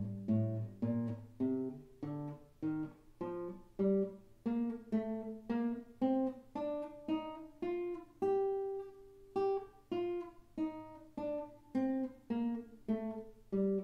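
Classical nylon-string guitar playing a minor scale, single plucked notes about two a second. The notes climb to a longer-held top note about eight seconds in, then descend.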